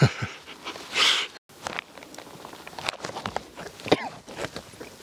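Rustling and irregular crunching clicks, like clothing and camera handling with steps on loose volcanic ground, with a breathy burst about a second in and an abrupt cut to silence a moment later before the rustling resumes.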